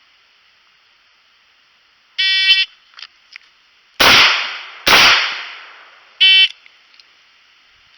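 Electronic shot timer's start beep, then two .38 Special shots from a Taurus 856 snub-nose revolver just under a second apart, then a second timer beep about four seconds after the first, marking the end of the 4-second par time.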